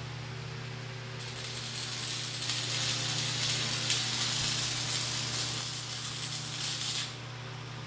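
Stick welding with a 1/8 in 6013 electrode at 140 amps: the arc crackles and hisses from about a second in until near the end, over a steady low hum.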